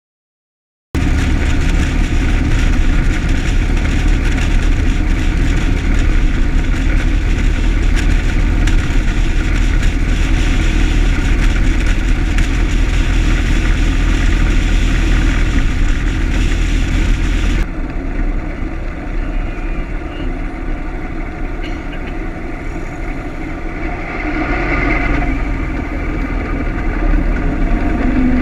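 A 1925 Ford Model T's four-cylinder side-valve engine running as the car drives along, with road noise and heavy wind rumble on the microphone. A little past halfway the sound suddenly turns quieter and duller, then swells again near the end.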